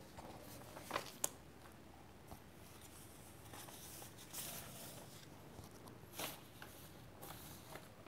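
Faint rustling of a paper sheet being handled and turned, with soft rustles about four and six seconds in and a couple of light clicks about a second in.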